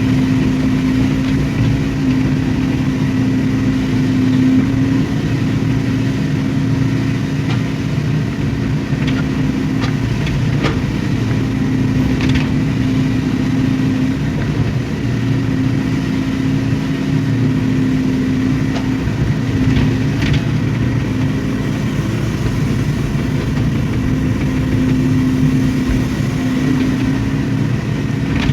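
Hydraulic excavator's diesel engine running steadily as it works, with a few short knocks about ten seconds in and again around twenty seconds.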